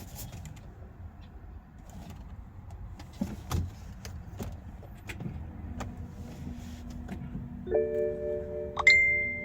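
Scattered light clicks as the ignition is tried, with no engine cranking or starting, then from about three-quarters of the way in the 2013 BMW 320i's dashboard warning chime sounds as a steady multi-note tone, with a sharp higher ding about a second later.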